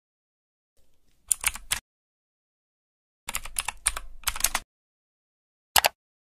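Keyboard typing: a few quick keystrokes about a second in, then a fast run of about ten, and one last single key press near the end, as a search is entered.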